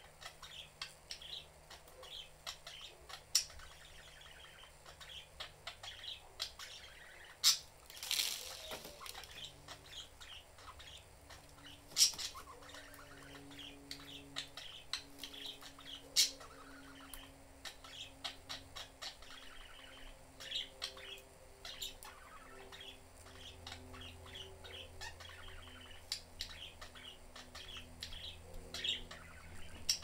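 Budgerigars chirping and chattering in quick short calls, with a few sharp clicks and a brief rustling burst, like a flutter of wings, about eight seconds in.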